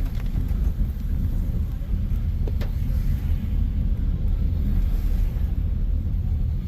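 Steady low rumble of a car being driven, heard from inside the cabin, with one short click about two and a half seconds in.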